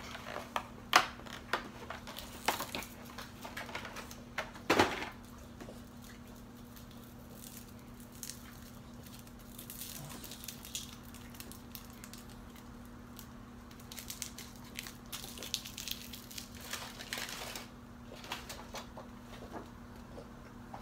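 Cardboard and paper packaging being handled, torn and crinkled while a cardboard advent calendar is opened and a small item unwrapped. A few sharp crackles come in the first five seconds, then a quieter stretch, then more rustling later on.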